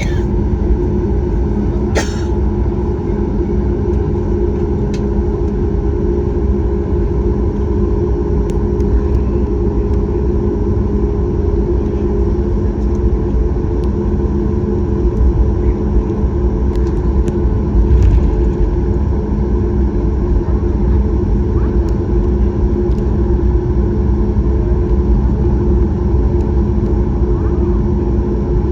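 Steady cabin noise of a Boeing 737 MAX 8 heard from a forward window seat: a low rumble with a constant hum. There is a sharp click about two seconds in.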